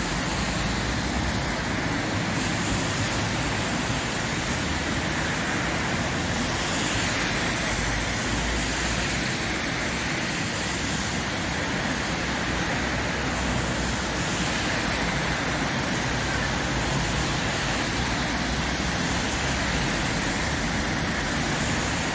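Steady street traffic noise: a continuous hiss of passing vehicles, swelling and fading gently every few seconds.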